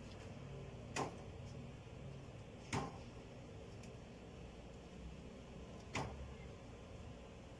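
Three short knocks of rabbits moving on the plastic slatted floor of a wire cage, about a second in, near three seconds and at six seconds, over a faint steady background.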